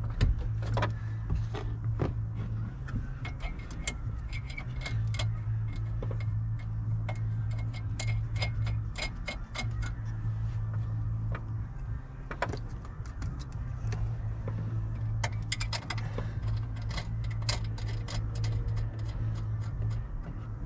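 Irregular runs of small metallic clicks from hand tools as nuts are threaded onto the steering column mounting studs under the dash of a 2000 Ford F-250, over a steady low hum.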